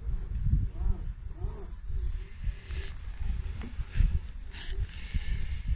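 Wind buffeting the microphone, an uneven low rumble, with faint short calls in the background.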